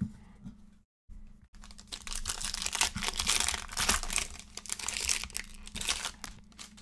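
Crinkling and tearing of a Panini Chronicles football card pack's wrapper as it is ripped open by hand and the cards are pulled out, loudest from about two seconds in.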